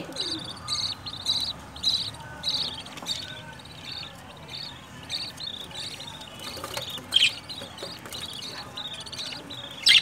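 Budgerigars chirping in the nest: a run of short, high chirps, about two a second, fading after a few seconds, with a louder, sharper call about seven seconds in and another at the very end.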